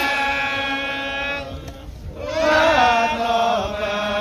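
A single voice chanting in long held notes in the Balinese style, in two phrases with a short break about two seconds in.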